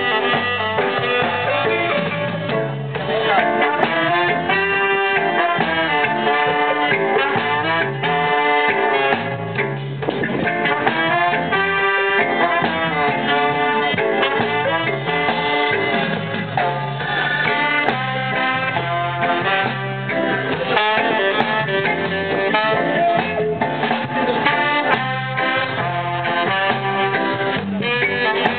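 Live band playing: a horn section of trombone, alto saxophone and trumpet plays held chords in short phrases over electric guitar, bass and keyboard.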